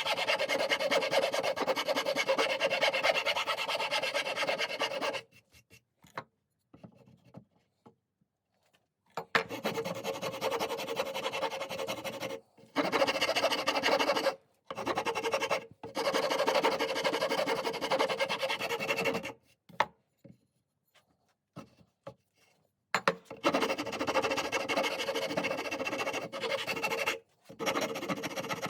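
Wood being rasped or sanded, most likely a new wooden axe handle being shaped. Scraping runs in stretches of a few seconds each, with short pauses between them.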